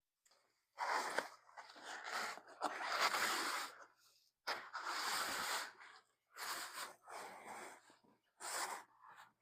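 Cloth rustling and sliding as a costume's pants are worked on over a prop's leg poles, in several short, irregular bursts.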